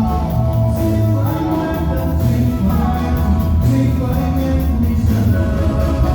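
Live Latin American band music with a steady pulsing bass and held keyboard-like notes.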